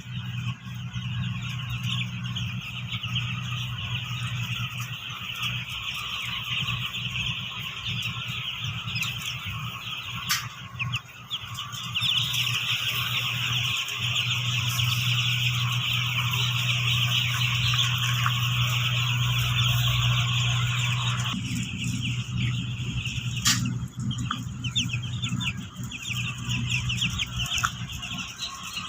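A flock of four-day-old broiler chicks peeping continuously, many high chirps overlapping, over a steady low hum that grows louder for several seconds midway. Two sharp clicks are heard, one before and one after the middle.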